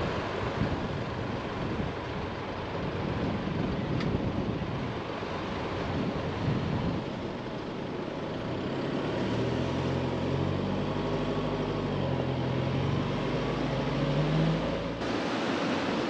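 Four-wheel drive's engine labouring through soft beach sand, its note climbing as it revs harder about a second before it cuts off suddenly near the end, over a steady rush of wind noise.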